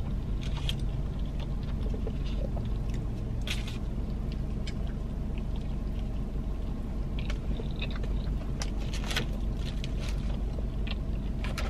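A person chewing a mouthful of cheeseburger close to the microphone, with a few scattered soft clicks, over a steady low hum.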